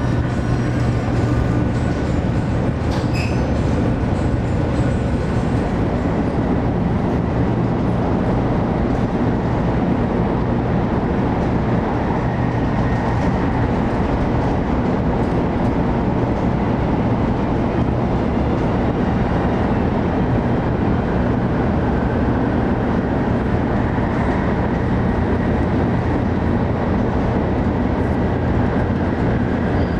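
Steady running noise heard inside the passenger car of a 500 Series Shinkansen on the move: a constant rumble with a low hum that does not change throughout.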